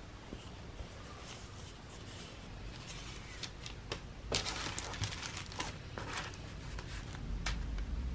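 Tissue paper rustling and crinkling under the hands as twine is wound and tied around a small wrapped parcel, a string of soft, irregular crinkles with a sharper one about four seconds in.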